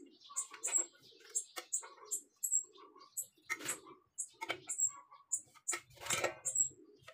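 Small birds chirping repeatedly in the background. Twice there is a louder scrape and knock from handling: the metal square and the steel box-section tube are shifted on cardboard.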